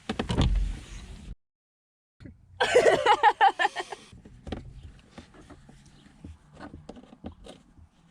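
Phillips screwdriver working the two screws behind the cruise control switch in a 2004–2007 Honda Accord's steering wheel: a run of clicks, a louder rasping stretch a few seconds in, then lighter scattered clicks.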